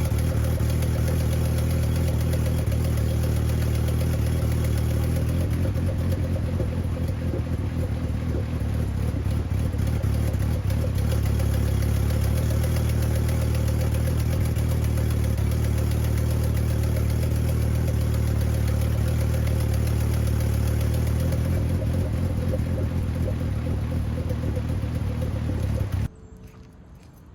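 VW 2.5-litre five-cylinder (07K) turbo engine idling steadily, then cutting off suddenly near the end. It is running poorly, which the owner thinks may be from the alternator not putting out.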